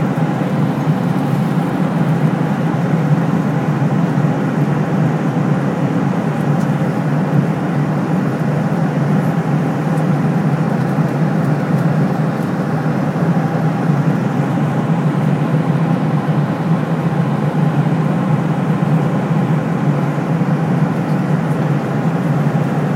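Steady engine and airflow noise inside an Airbus A330's passenger cabin: an even low rumble with a few faint steady hums above it.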